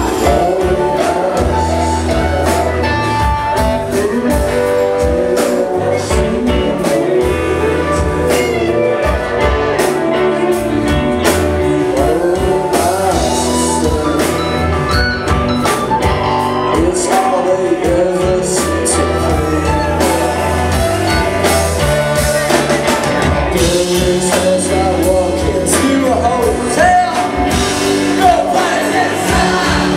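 Live indie rock band playing loudly: electric guitars, bass and drum kit, with a lead singer singing over them.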